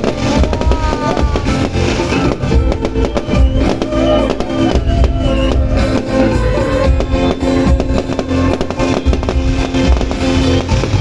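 Dangdut band music with electric guitar and drums playing loudly over a PA, with fireworks popping and banging throughout.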